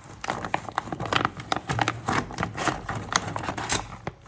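Rapid, irregular clicks, knocks and rustles of loose parts and packing being handled and rummaged through.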